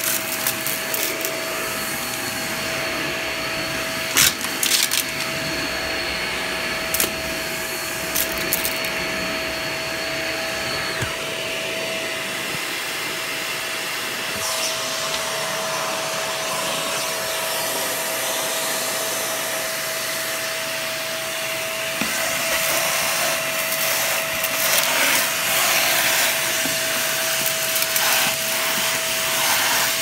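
Corded stick vacuum running with a steady high motor whine, with a few sharp clatters as bits of debris are sucked up. Its sound gets louder and rougher about two-thirds of the way through.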